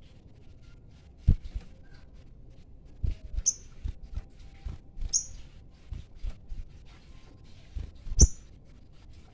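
A sogon bird gives three short, sharp, high-pitched calls spaced a couple of seconds apart, the territorial calling of a male in breeding condition. Dull low knocks and thumps come between the calls.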